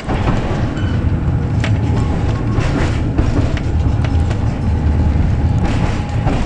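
Tram running along the track, heard from inside its cab: a steady low rumble of the wheels on the rails, with a few sharp clicks.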